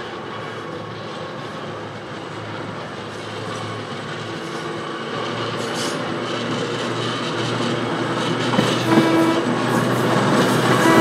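Electric trolley car approaching along the track, its running noise and rail clatter growing steadily louder as it nears, with a short squealing tone about nine seconds in and again at the end.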